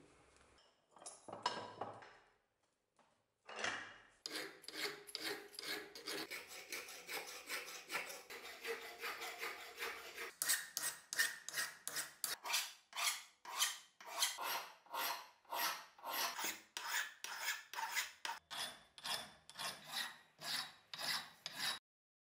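Hand file rasping back and forth on the steel head of an old axe clamped in a bench vise, reshaping it. The strokes are repeated, about two a second, and come after a few faint handling sounds at the start.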